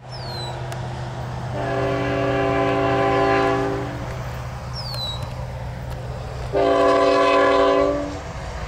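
Diesel freight locomotive's multi-chime air horn sounding two long blasts, the first about two and a half seconds, the second about a second and a half, over a steady low hum.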